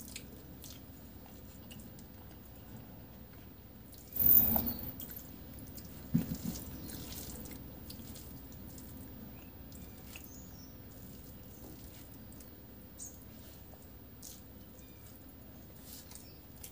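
Eating rice and curry by hand: wet, squelchy mouth and chewing sounds with small clicks as the rice is mixed and eaten. A short, loud noisy burst comes about four seconds in, and a smaller one about two seconds later.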